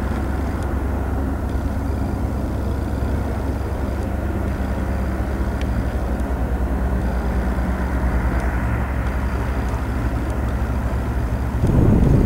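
Steady low engine drone with several steady low tones. Near the end it gives way to a louder, noisier rumble.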